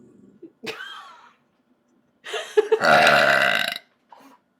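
A person burping deliberately: one long, loud burp of about a second and a half in the second half, after a shorter, quieter sound about a second in.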